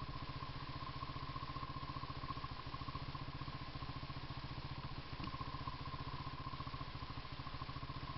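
A small engine idling steadily with an even low pulse and a faint high whine on top; a light click about five seconds in.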